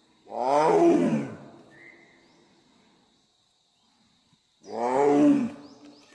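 Bengal tiger roaring twice, each roar about a second long and falling in pitch.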